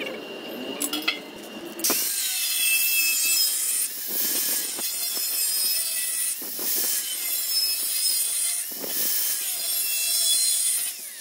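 Angle grinder cutting into stainless steel. It starts about two seconds in and runs in four long passes with brief dips between them, its whine sagging in pitch under load.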